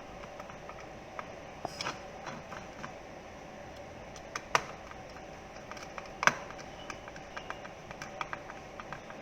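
Scattered light clicks and taps of a small plastic remote housing and its parts being handled and taken apart, with two sharper clicks about four and a half and six seconds in.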